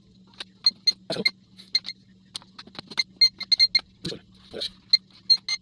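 Short electronic beeps and clicks from a small toy drone and its handheld controller while it is being switched on and set up, irregular at first and turning into fast, regular beeping of about five a second near the end.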